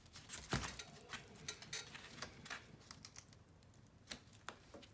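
Scattered light clicks and taps of small metal parts and a hand tool being handled, with one louder knock about half a second in.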